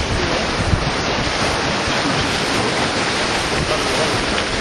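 Steady wind buffeting the microphone over the rush of choppy sea water and breaking waves.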